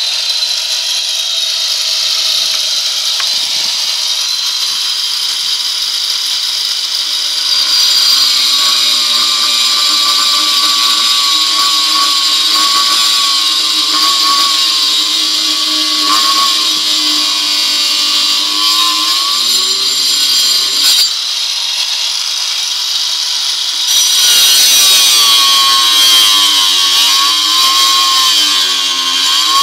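Handheld angle grinder with a cutting disc running and cutting into the edge of a wooden board. Its motor whine dips and rises in pitch as the disc bites into the wood, and it gets louder again about three-quarters of the way through.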